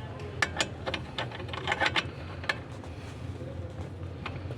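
Irregular metallic clicks and clinks of hand tools working on metal parts, most of them in the first two and a half seconds, over a steady low hum.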